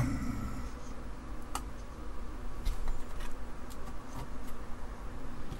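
A few faint, scattered clicks of small ceramic DRAM chips being picked up and pressed into their sockets on a circuit board.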